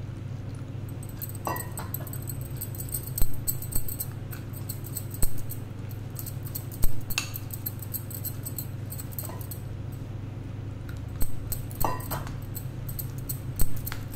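Spoon stirring a wheat-flour and water paste in a small glass bowl, with irregular clinks and taps of the spoon against the glass, over a steady low hum.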